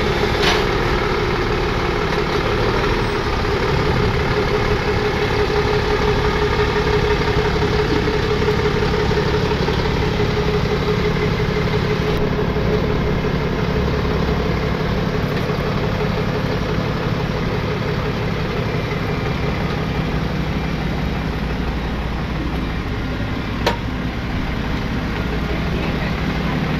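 Tow truck engine running steadily as the truck slowly pulls away towing a car on its wheel-lift. There is a single sharp click near the end.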